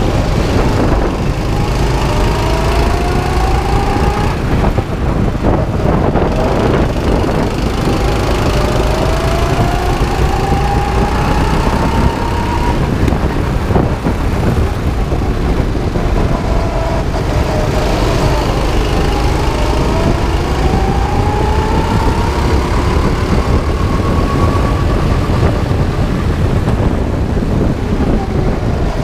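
A 9 hp go-kart engine running hard, its pitch climbing slowly for several seconds and then dropping, over and over as the kart speeds up and slows again, over a heavy low rumble.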